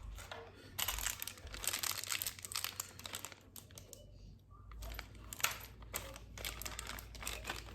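Packaging crinkling and rustling in irregular bursts as hands rummage through a box of accessories, with a short lull about four seconds in.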